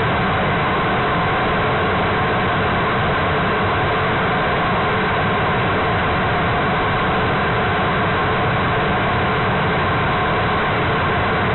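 H3 rocket's LE-9 liquid-hydrogen/liquid-oxygen expander bleed cycle engine firing on a test stand during a thrust-throttling check. It makes a loud, steady rush of exhaust noise that holds an even level throughout.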